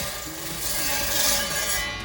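Motorised five-blade ice-block cutter sawing through ice with a loud hissing grind that cuts off near the end, over background music.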